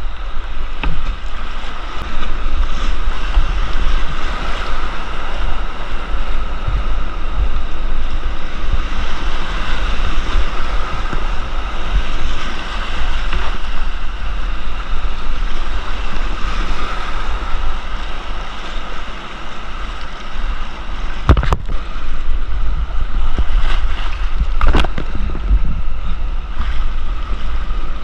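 Rushing whitewater of a creek rapid around a kayak, with water and wind buffeting the microphone. Two sharp knocks in the last third.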